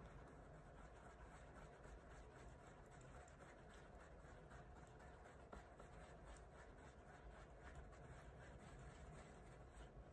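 Faint, irregular scratching and ticking of a small tool stirring wet baking soda paste in a silicone mould, over low room hiss.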